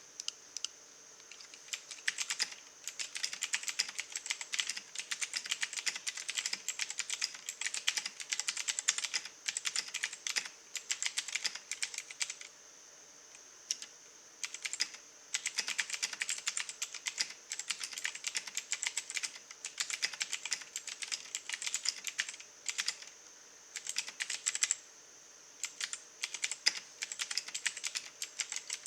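Royal Kludge RK84 mechanical keyboard being typed on: fast runs of key clicks broken by a few short pauses.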